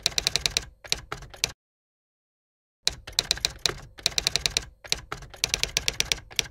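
Typing sound effect: rapid runs of sharp key clicks. The clicking stops about a second and a half in, leaves dead silence for just over a second, then starts again.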